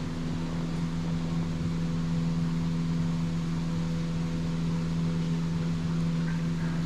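An electric fan motor running with a steady, even hum.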